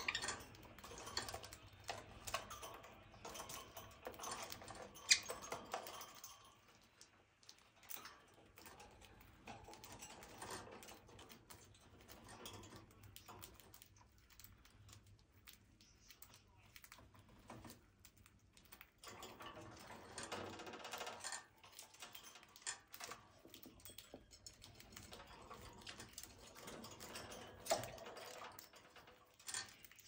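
A budgie cracking seeds from a millet spray with its beak: a run of faint, irregular small clicks.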